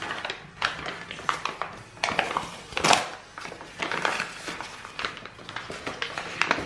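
Crumpled brown wrapping paper crinkling and rustling under the hands as it is smoothed and folded, in uneven crackles, the loudest about three seconds in.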